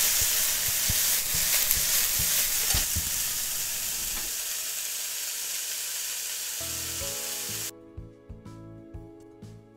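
Bean sprouts and chikuwa sizzling in an oiled frying pan while a spatula stirs them, with a few sharp scrapes and knocks against the pan in the first few seconds. The sizzle grows fainter, light music comes in, and the frying sound cuts off suddenly about three-quarters of the way in, leaving the music.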